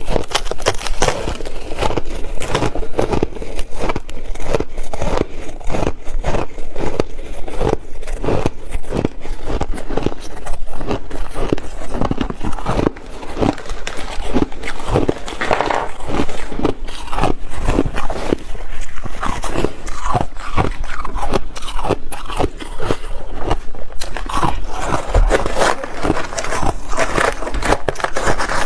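Ice being bitten and chewed close to the microphone: a dense, unbroken run of loud crunches and crackles, with a brief lull partway through.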